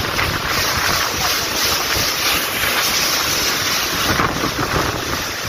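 Strong dust-storm wind blowing hard across the microphone.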